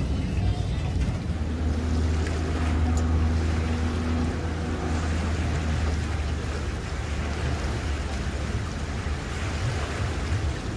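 Motorboat engine running with a steady low hum, over wake waves washing in against the shore.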